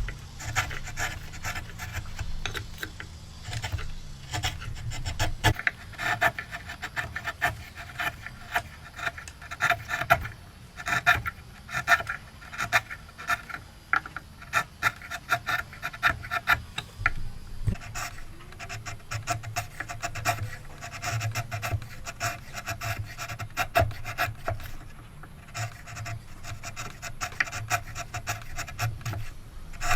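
Rhythmic rasping strokes of a hand tool working wood, about one to two strokes a second, over a steady low hum.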